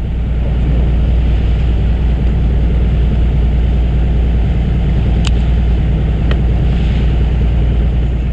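A fishing boat's engine running steadily, a deep continuous drone. Two faint clicks come about five and six seconds in.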